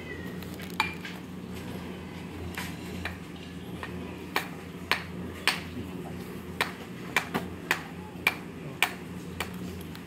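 Sharp metallic clinks of steel reinforcing bar and mesh being handled and struck, a dozen or so, most of them from about four seconds in, over a steady low machine hum.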